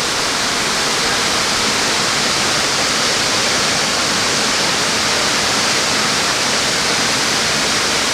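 Rideau Falls: water pouring over the falls below the dam in a loud, steady rush.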